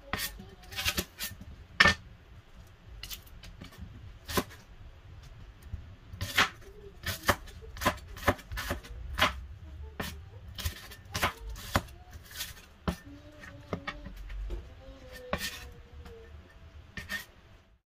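Cleaver slicing a red onion on a bamboo cutting board: sharp knocks of the blade striking the wood, irregular, about one or two a second.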